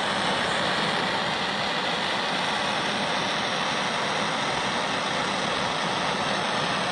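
Handheld gas torch burning with a steady hiss as its blue flame is held on a spark plug.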